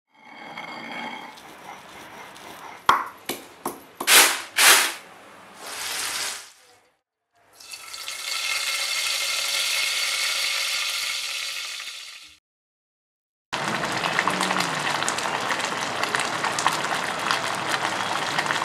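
A stone mortar being worked, with several sharp knocks, then oil sizzling steadily in a pan as a tempering fries, then a thick colocasia-leaf curry (aluchi bhaji) boiling with dense bubbling and popping. The bubbling is the 'phad-phad' sound that gives alu phadphad its name.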